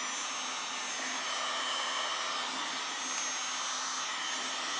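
Heat gun blowing steadily, a fan-driven rush of air with a faint low hum, softening the butyl sealant of a headlight so the lens can be pried off.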